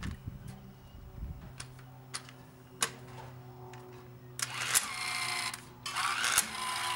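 A 12V electric impact wrench hammering a wheel nut tight in two short bursts of rapid clattering, one about four and a half seconds in and a longer one about six seconds in. A few light metallic clicks come before them, over a low steady hum.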